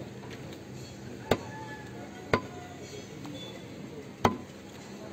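Butcher's cleaver chopping beef on a wooden log chopping block: three sharp chops, the second following the first after about a second and the third about two seconds later.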